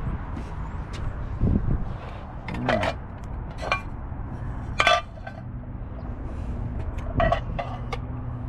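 Hard plastic box clicking and clacking as it is opened, handled and set back down on a concrete base: a string of short, sharp clicks and knocks.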